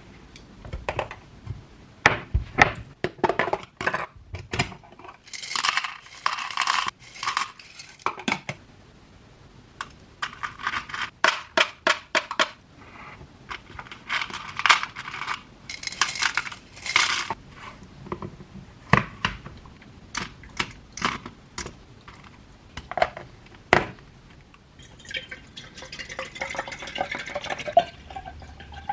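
Kitchen handling sounds: dishes and utensils clinking and knocking in quick, uneven strokes, with stretches of scraping or rustling. Near the end, liquid is poured into a container, its pitch rising as it fills.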